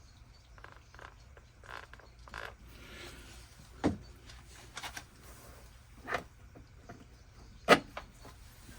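Scattered light clicks and knocks of hands handling a car's plastic interior trim panel and small fixings while a threaded magnet is fitted into it. Three sharper knocks stand out, the loudest near the end.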